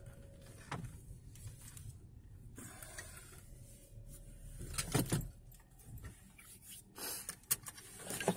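Quiet car interior with a low steady rumble and a few scattered clicks and knocks, the loudest about five seconds in and near the end.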